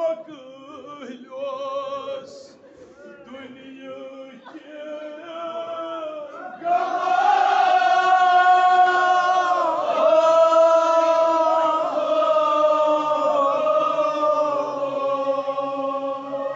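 Male voices chanting a Kashmiri marsiya, a mourning elegy: wavering, ornamented phrases at first, then about seven seconds in the chant grows loud on long held notes that slide slowly in pitch.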